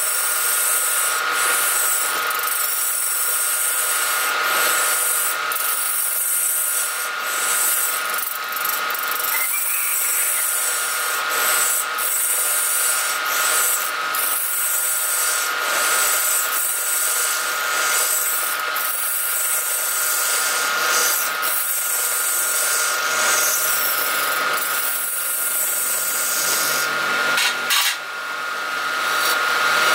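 A wood lathe runs with a steady whine while a hand-held hollowing tool scrapes and cuts inside the mouth of a spinning wooden vase. The scraping breaks off briefly near the end.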